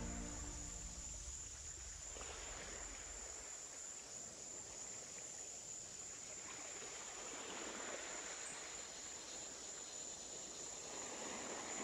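Night-time insect ambience: a steady high-pitched cricket-like trill over a soft hiss, as the music fades out in the first second or two.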